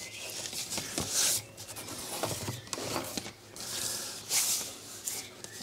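Paper template rustling and sliding over a thick veg-tan leather hide as hands smooth it into place, in several short rubbing strokes with pauses between.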